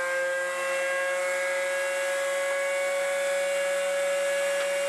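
A router mounted in a router table running at speed: a steady high whine that creeps slightly up in pitch as a board is fed past the bit under the featherboards.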